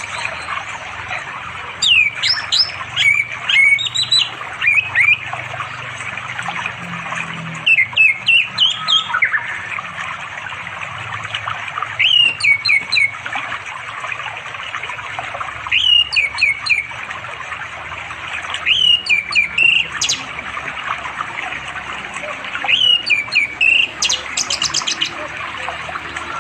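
Orange-headed thrush singing: about six short phrases of quick, sweet notes that glide down from high to lower pitch, each a second or two long with a few seconds' pause between. It is a male's song calling to a female, heard over the steady rush of a forest stream.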